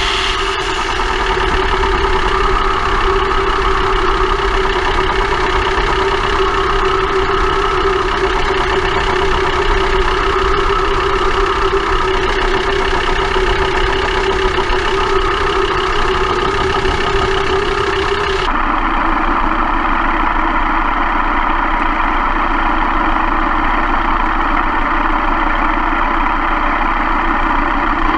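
Front axle and drivetrain of a VW T4 van heard from underneath while driving: a steady running drone with a constant metallic grinding tone through it. The owner has not found the cause: the right drive shaft has been renewed and the wheel bearings are ruled out. About two-thirds of the way through the sound changes abruptly and loses its hiss.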